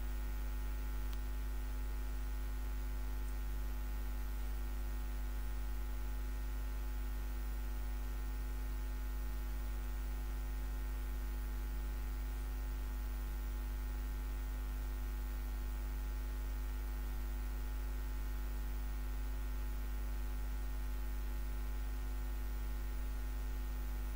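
Steady low electrical hum, with several fainter steady tones above it and no other sound.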